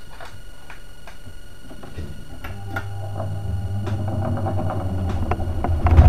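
1969 Soviet all-metal desk fan switched on and spinning up: its 55-watt motor hum builds from about halfway through and grows steadily louder as the blades come up to speed, with a few light clicks along the way.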